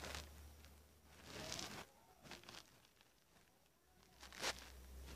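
Cloth rustling and handling noises close to a phone's microphone as fabric is arranged over it, in a few short scrapes, with one sharp bump about four and a half seconds in.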